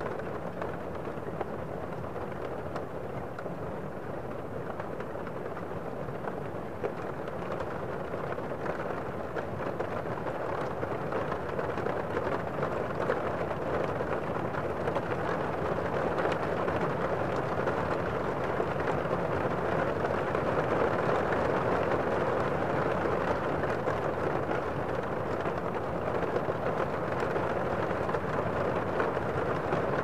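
Steady rain falling on leafy plants: an even rushing noise that grows slightly louder about ten seconds in.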